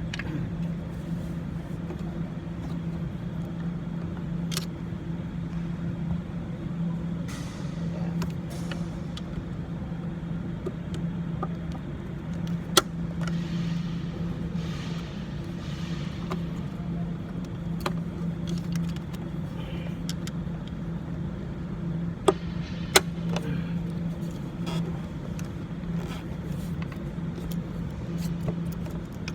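A steady low mechanical hum under hands working on a car's ABS sensor wiring, with rustling and scraping and three sharp clicks of clips or tools: one about halfway through and two close together later on.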